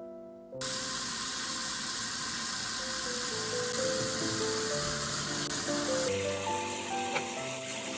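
Tap water running into a stainless steel bowl of soybean sprouts in a sink, starting about half a second in. The sound changes a little after six seconds in, as hands swish the sprouts through the water. Soft piano music plays throughout.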